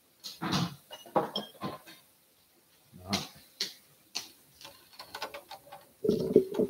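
Scattered light knocks and clicks of handling on a kitchen counter, irregular and separated by short quiet gaps, with a low hum joining about a second before the end.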